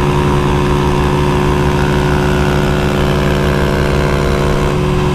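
Honda pit bike's small single-cylinder four-stroke engine held at full speed, its note steady in pitch, with wind and road noise rushing past.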